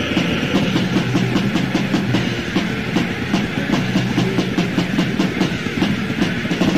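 Instrumental passage of a lo-fi 1990 death/black metal demo recording: fast, steady drumming under distorted guitar, with no vocals.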